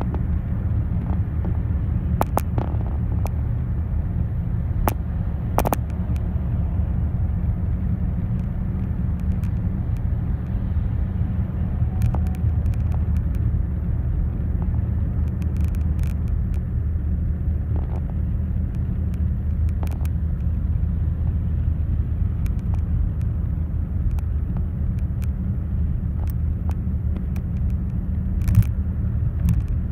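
Steady low drone of a car at motorway speed, heard inside the cabin: engine and tyre rumble at a constant level, with a few short clicks scattered through it and a slightly louder knock near the end.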